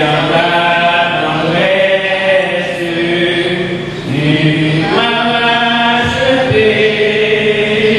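A group of voices singing a slow French hymn, holding long notes that change pitch every second or two.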